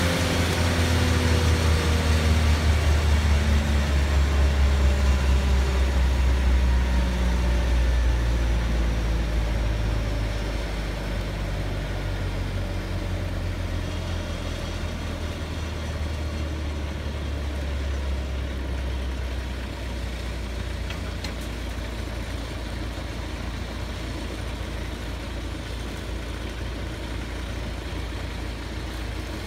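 A large engine idling with a steady low rumble. Its pitch falls over the first few seconds as it slows, and it is louder for about the first ten seconds before settling at a lower, even level.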